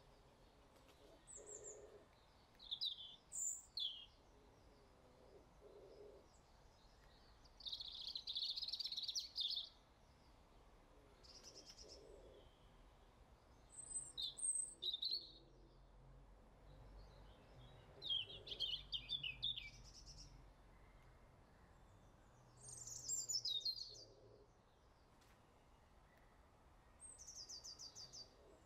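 Small birds chirping and trilling in short high-pitched bursts every few seconds, over a faint low hum.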